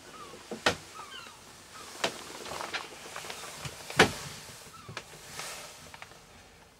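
A few sharp knocks and clicks, the loudest about four seconds in, with faint short chirps that fall in pitch in the first second or so.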